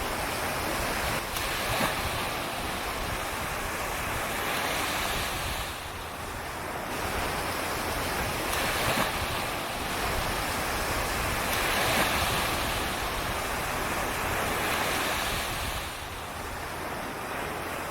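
Surf at the water's edge: small waves breaking and washing up the sand, the rush swelling and easing every few seconds.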